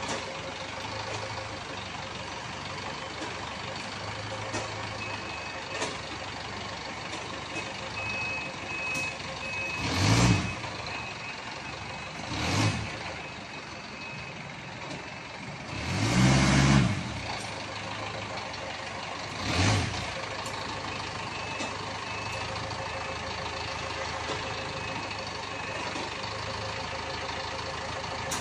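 A prime mover truck's engine idles steadily while its air brakes let out four short hisses, the third the longest and loudest, as the repaired brake system is tested. A faint high beeping comes and goes.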